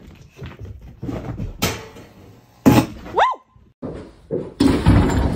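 A few sharp thuds and knocks, with one short cry that swoops up and then down about three seconds in, and a stretch of loud noise near the end.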